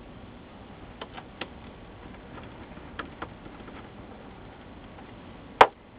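Small clicks and taps of parts being handled on an LCD monitor's metal chassis, a few faint ones spread out, then one sharp, loud click near the end.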